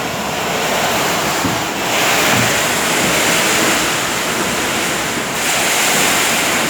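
Storm wind blowing hard in surging gusts, buffeting the microphone.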